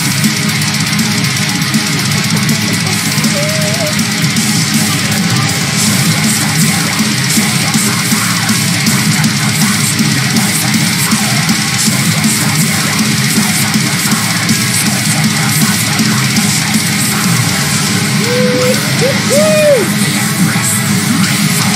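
Heavy metal music with electric guitars, playing loud and without a break.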